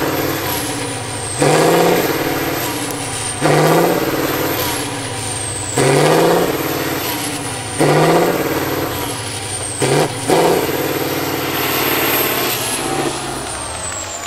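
Six-wheel truck-trial truck's diesel engine revved hard in repeated bursts about every two seconds, each burst bringing a high whistle that jumps up and slides down until the next, as the truck works up a steep slope; the last burst is held longer before the engine eases off near the end.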